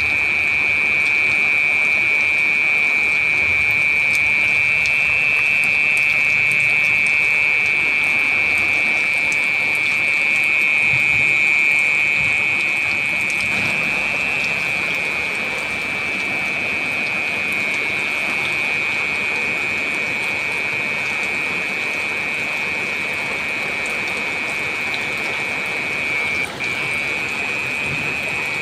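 Heavy rain falling steadily, with a constant high-pitched hiss running over it.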